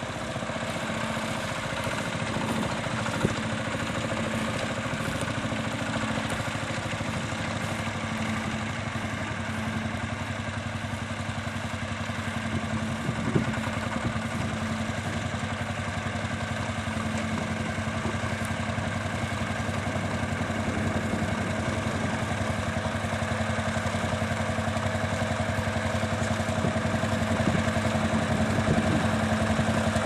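Vintage tractor engine running steadily as it pulls a plough through the field, getting gradually louder as it comes closer. A sharp knock a few seconds in and another about halfway through.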